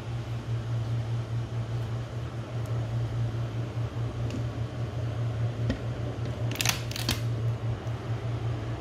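Steady low hum, of a fan or appliance kind, throughout, with a brief cluster of sharp clicks about two-thirds of the way through.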